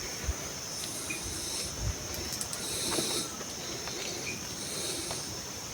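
Outdoor insects buzzing steadily in a high-pitched drone, with a higher buzzing that swells and fades three times, and a few soft footsteps or knocks.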